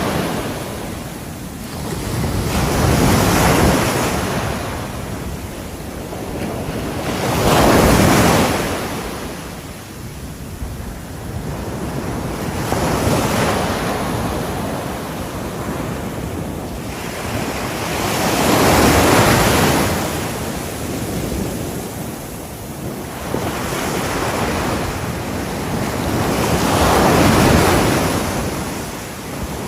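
Ocean waves breaking on a shore. Each wave rises to a crash and then washes out, about six times, every four to six seconds.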